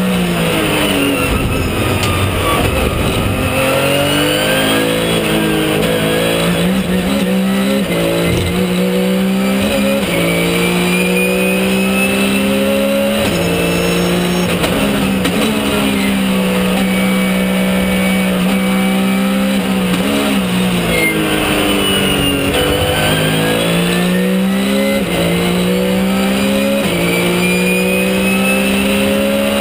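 Porsche 997 GT3 Cup race car's naturally aspirated flat-six at racing speed, heard from inside the cockpit. The revs climb again and again with sudden drops at each upshift, and fall away under braking a few times before climbing once more.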